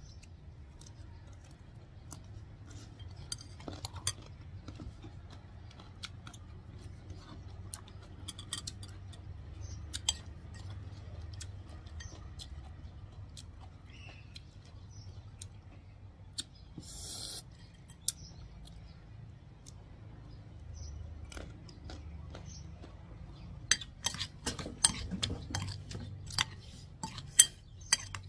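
Stainless steel spoon clinking and scraping against a ceramic bowl while tossing sliced young mango in shrimp-paste chili sauce: scattered clinks, then a quicker run of louder clinks near the end.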